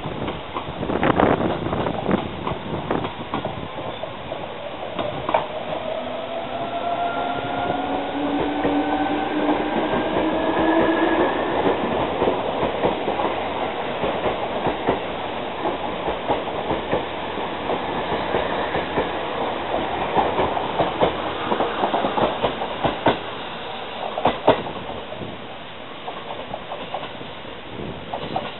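Seibu New 2000 series electric commuter train running along the platform: a steady rumble with the traction motors whining up in pitch for several seconds as it speeds up, then wheels clicking over rail joints, the clicks thickest a few seconds before it fades.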